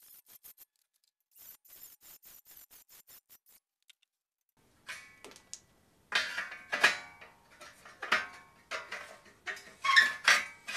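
Steel angle iron clanking and knocking against the square steel tubing of a frame as it is worked down into a cut notch: a run of sharp metallic clanks with short rings in the second half. Before them come faint, quick, light ticks.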